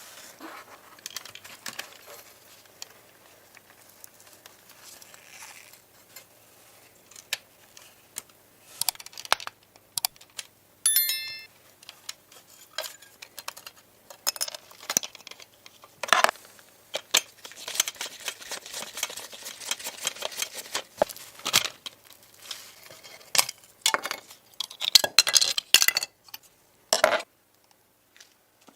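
Metal parts and hand tools clinking, tapping and knocking during workshop work, an irregular run of sharp clicks, with one clear ringing metallic clink about eleven seconds in.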